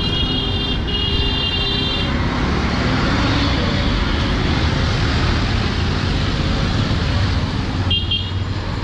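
Street traffic on a wet road: a steady mix of auto-rickshaw engines and tyre noise, with high-pitched horn toots over the first two seconds and again near the end.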